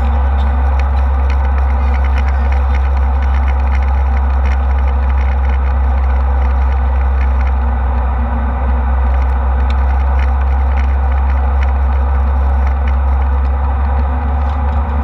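Steady jet airliner cabin noise in flight: a loud, constant low drone of engines and airflow, with faint scattered rattles.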